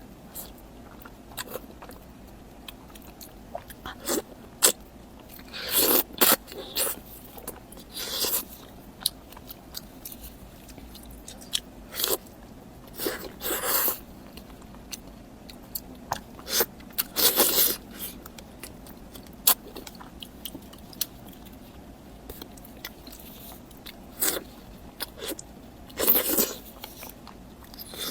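Close-miked eating sounds of a person biting and chewing steamed fish, mouth noises coming in irregular bursts with short pauses between.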